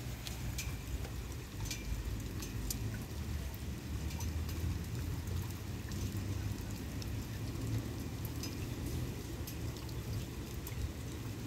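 Light rain: scattered sharp drop ticks over an irregular low rumble of wind on the microphone.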